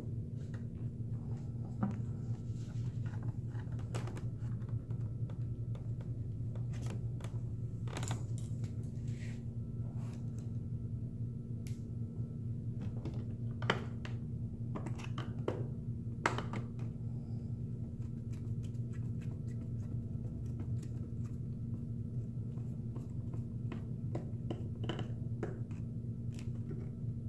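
Scattered small clicks and taps of a screwdriver driving small plastic screws into the plastic under tray of a Honda CBR1000RR, a few sharper clicks standing out, over a steady low hum.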